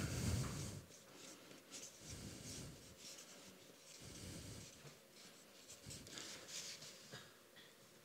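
Felt-tip marker rubbing across a large paper sheet as words are written by hand, in faint, irregular short strokes.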